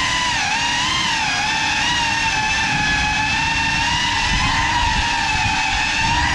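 GEPRC CineLog35 cinewhoop's brushless motors and ducted propellers whining in flight, the pitch rising and dipping a little with throttle, over a low rush of prop wash.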